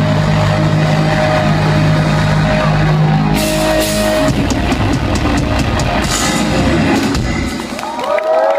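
Hard rock band playing live: distorted electric guitar and bass hold a chord, then drums and cymbal crashes drive the song's big finish, which stops about seven and a half seconds in. Near the end the crowd starts cheering and whistling.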